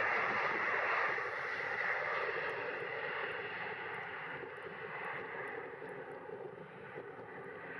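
Jet airliner's engines roaring as it passes, then fading steadily as it moves away, the higher frequencies dying off first.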